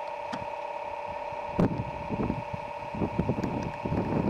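An ATV's engine running with a steady mechanical whine. From about a second and a half in, wind buffets the microphone in gusts.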